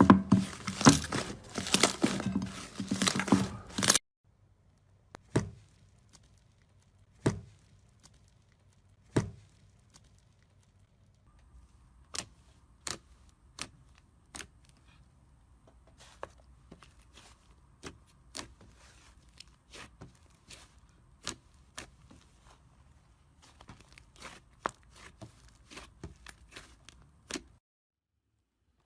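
Slime being squeezed and poked, popping and crackling: a dense run of crackles for about four seconds, then, after a sudden cut, single sharp pops a couple of seconds apart that come more and more often.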